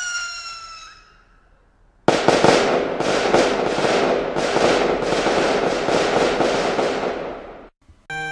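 Fireworks: a high whistle falls in pitch and fades out, then about two seconds in a sudden bang opens a run of dense crackling bursts that fades away a second before the end. Music starts just at the end.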